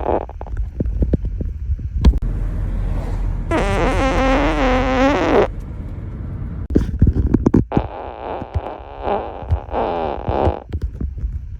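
A run of farts: sputtering pops first, then a long wavering pitched fart about three and a half seconds in, then several shorter ones near the end.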